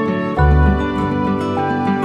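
Background music: held instrumental notes, with a deep bass note coming in about half a second in.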